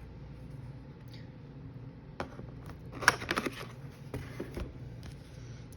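Packaging of a wine subscription box being opened and handled: a sharp click about two seconds in, then a loud cluster of quick rustles and taps a second later, and a few softer taps after that.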